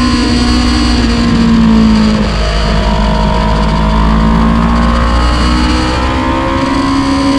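Sport motorcycle engine running hard at high revs, heard from a camera mounted on the bike, under steady wind rush. The engine note holds, sags a little about two seconds in, then climbs again near the end as the rider accelerates.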